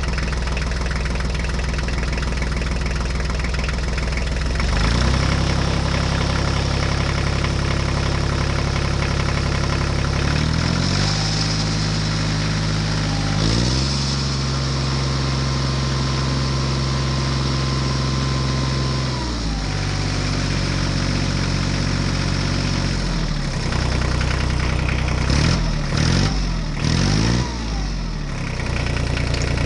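An engine running, mostly idling, its pitch shifting up or down to a new steady level every few seconds, with a short stretch of quick pitch changes near the end.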